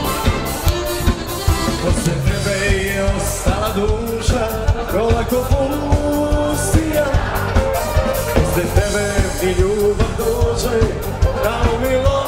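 Live dance band playing an upbeat pop-rock song with a steady fast drum beat; a woman's lead vocal comes in about two seconds in.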